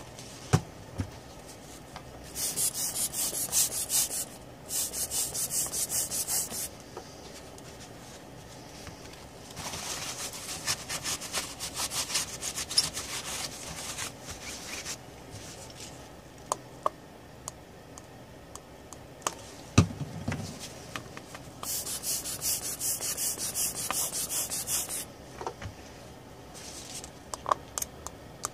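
A tissue scrubbed quickly back and forth over a laptop motherboard to clean flux from around the graphics chip, in four bouts of fast hissy strokes. A few light knocks fall between the bouts, and one louder thump comes about two-thirds of the way through.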